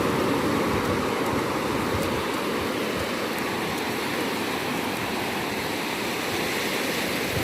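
Ocean surf washing onto a beach: a steady, even rush of breaking waves.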